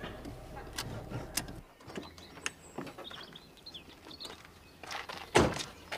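Small hatchback car: its low interior hum stops after about a second and a half, then come faint birdsong, door clicks and a car door shutting with a loud thud near the end.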